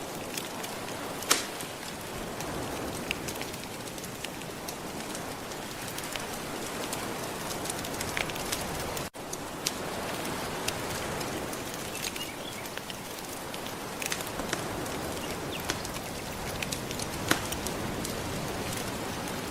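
Wood fire crackling with scattered sharp pops, the loudest about a second in, over a steady wash of gentle ocean surf. The sound drops out for an instant about nine seconds in.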